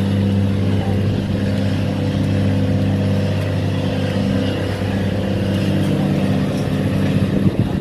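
Tugboat diesel engine running steadily under load, a deep, even drone.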